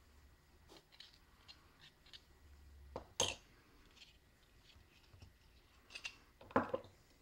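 Faint handling clicks and taps from hands moving a plastic N scale locomotive shell and a small glass bottle of liquid plastic cement on a table. There are two sharper knocks, one about three seconds in and one near the end.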